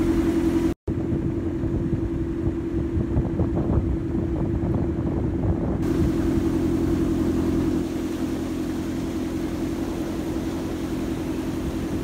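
The engine of a long wooden river boat running steadily under way, a constant low hum with wind and water noise over it. The sound drops out for an instant about a second in.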